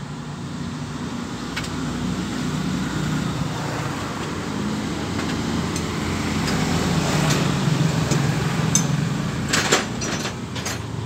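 A motor vehicle engine running with a steady low hum that grows louder toward the middle and then eases off. A few sharp metallic clinks come near the end.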